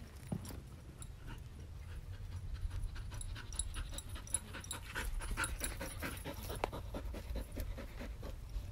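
A dog panting fast in quick, even breaths, about three a second, louder through the second half.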